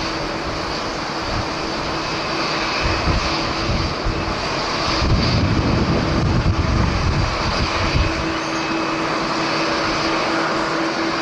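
Jet airliner engines running with a steady rush and a held hum, while strong wind buffets the microphone in gusts that swell about midway.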